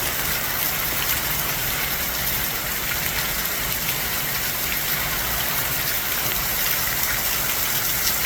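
Hurricane rain and wind: a steady, unbroken rush of heavy rain with no let-up.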